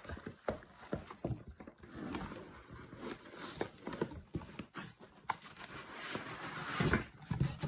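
Packaging being handled as a label printer is taken out of its box: irregular light knocks and taps, with a stretch of rustling near the end.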